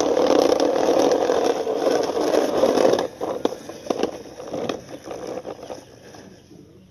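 Plastic toy jeep pushed by hand over gritty concrete, its plastic wheels rolling with a steady scraping. About three seconds in the scraping stops and gives way to scattered clicks and rattles that fade out.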